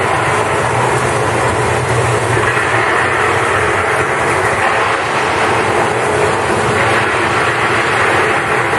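Steady rushing of a staged indoor rainstorm, water falling in a shower, with a low rumble under it about two to four seconds in.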